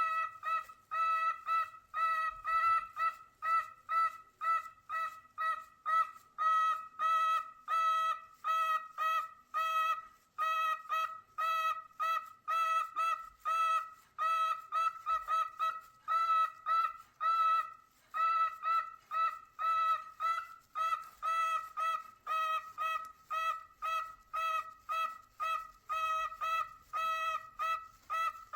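A bird calling over and over: short pitched calls, about two a second, kept up without a pause.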